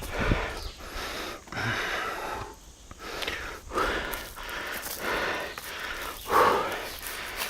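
A hiker's heavy, laboured breathing from the exertion of climbing a steep slope with a backpack: a string of hard breaths, about one a second, the loudest near the end.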